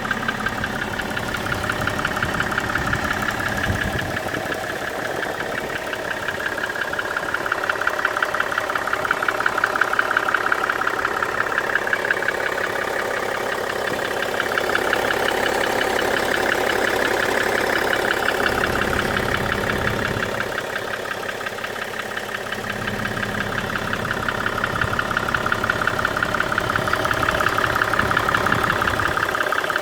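BMW 535d's 3.0-litre twin-turbo straight-six diesel running with a rapid, steady clatter over the engine note. The owner hears it mostly when the engine is hot, and wonders whether it comes from a worn connecting-rod bearing, worn lifters or an injector fault.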